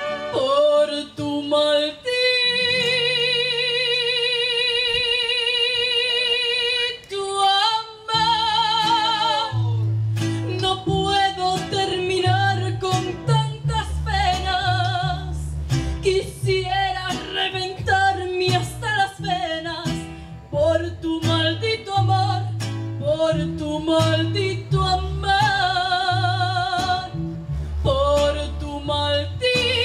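Live mariachi music: violins, trumpets and guitars accompanying a female singer. A long note with vibrato is held from about two seconds in, then the band picks up a steady strummed rhythm with a bass line under the melody.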